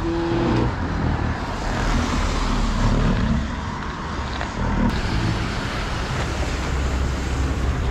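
Road traffic in rain: a steady hiss of tyres on a wet road over a low rumble of engines.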